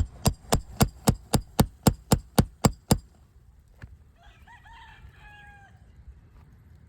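Roofing hammer striking a nail-pulling tool in a quick run of about a dozen even blows, some four a second, to work a shingle nail loose. About a second after the blows stop, a rooster crows once.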